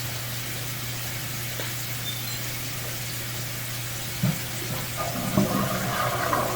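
Steady low electrical hum with a faint hiss. About four seconds in there is a single knock, and about a second later water begins rushing: a toilet flushed on the other side of the bathroom, sending water down the drain line under inspection.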